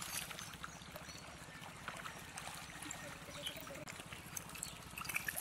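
Small, scattered splashes and trickling in shallow muddy pond water, as stranded fish flap and thrash and hands work through the mud.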